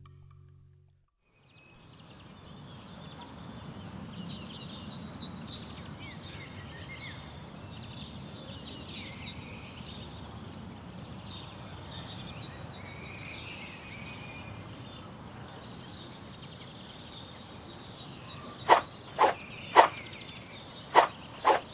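Outdoor ambience, starting after a brief silence: a steady low rumble with birds chirping. Near the end come six sharp knocks in two groups of three.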